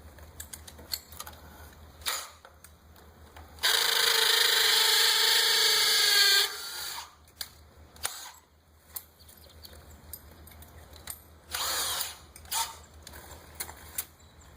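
Power drill running steadily for about three seconds, then a second short run near the end, amid light clicks and knocks from handling the tool after a bit change.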